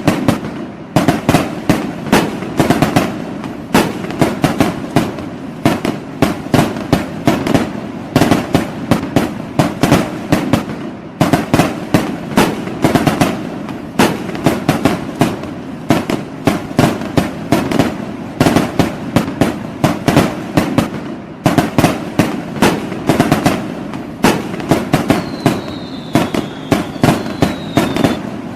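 Fireworks going off in a dense, continuous barrage of sharp bangs, several a second, with brief lulls. Near the end two short whistles fall in pitch over the bangs.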